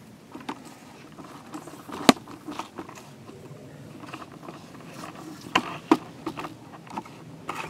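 Handling noise from a camera being moved by hand: low rustling with scattered sharp clicks. The loudest click comes about two seconds in, and two more follow close together near six seconds.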